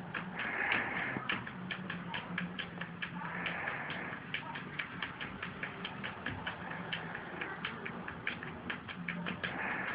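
A cat's claws tapping and scratching at a laptop screen: rapid, irregular ticks, several a second.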